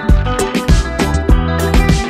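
Background music with a steady drum beat over a bass line and other instruments.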